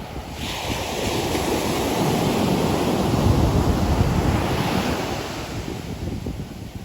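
Sea waves breaking, with wind buffeting the microphone. The rush builds, peaks around the middle, then eases off.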